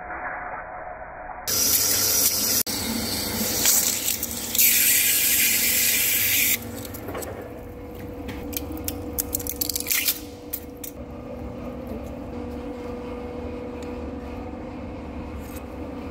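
Centre lathe cutting seal grooves in a steel hydraulic piston, with cutting coolant spraying over the work. A loud rush of coolant starts abruptly about a second and a half in and stops abruptly after about five seconds, giving way to a quieter stretch with a steady hum and scattered clicks.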